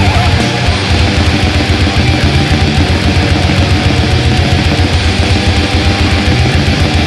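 Death metal: heavily distorted guitars over fast, dense drumming, loud and unbroken.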